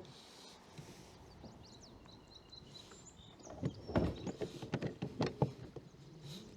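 Faint bird chirps, then a quick run of hard knocks and clatter about four to five and a half seconds in.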